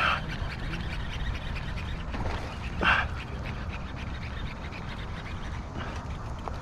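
Wind buffeting the microphone in a steady low rumble, with one short, loud cry about three seconds in.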